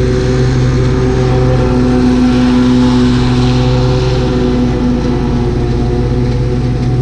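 Lawn mower engine running steadily at a constant speed while mowing.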